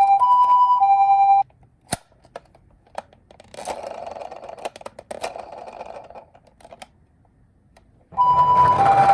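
Toy ambulance's electronic two-tone siren, alternating high and low "pee-po" notes, cuts off about a second and a half in. A few clicks and about three seconds of scraping noise follow, and the siren starts again about a second before the end over louder noise.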